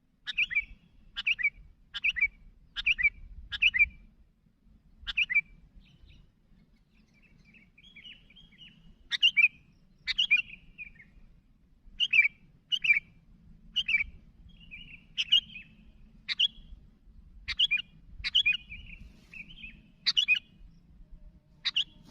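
Sooty-headed bulbul (kutilang) calling: a string of short, sharp chirping notes, roughly one a second with a few pauses, and some softer warbled phrases between them.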